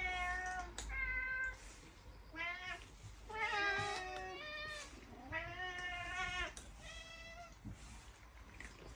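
Several domestic cats meowing insistently to be fed, about six calls one after another, two of them overlapping in the middle, before they die down near the end.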